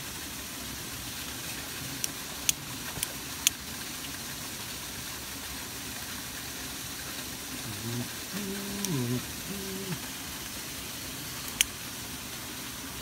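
A lighter being struck to set plastic rubbish bags alight: a handful of sharp clicks, four in quick succession about two to three and a half seconds in and two more later, over a steady low hiss.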